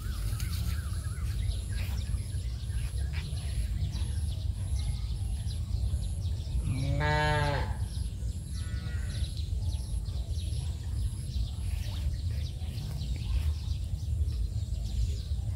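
A cow mooing once, a single call of about a second, over a steady low background rumble.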